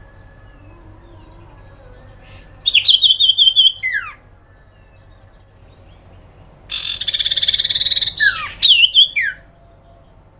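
Common iora (sirpu) singing loudly in two phrases: first a quick run of high repeated notes ending in a downward slur, then a fast buzzy rattle followed by more quick notes and two downward slurs.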